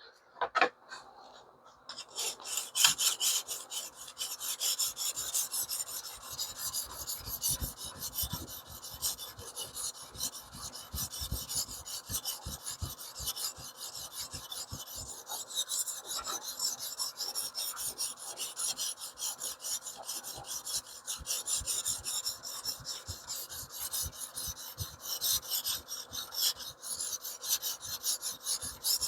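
A 220-grit coarse sharpening stone on a TS Prof Kadet Pro guided-angle sharpener, stroked back and forth along the edge of a small cleaver-shaped knife in a steady run of rasping scrapes. The strokes start about two seconds in and go on without a break.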